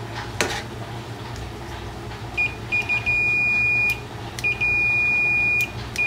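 Digital multimeter's continuity beeper sounding as its probes touch the terminals of a microwave door micro switch: a click about half a second in, then a couple of short chirps and two long steady beeps of about a second each. The beep means the switch contacts are conducting and the switch tests good.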